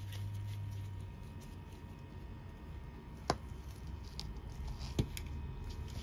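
Hand tools being handled: two sharp metal clicks about a second and a half apart, from pliers worked on a thin wire, among faint handling ticks over a low steady hum.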